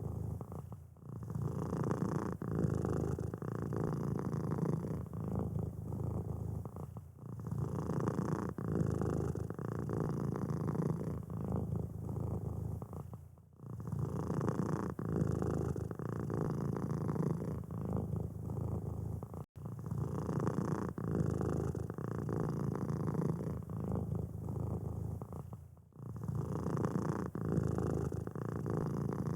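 Domestic cat purring steadily, a low rumble that pauses briefly about every six seconds.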